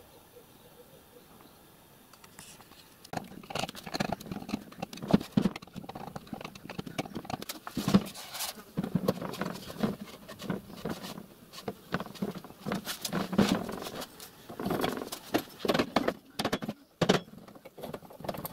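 Irregular clunks, clicks and rattles of a small riding trolley's steel chassis, footrests and wooden box being handled and shifted about on a bench. It starts a few seconds in.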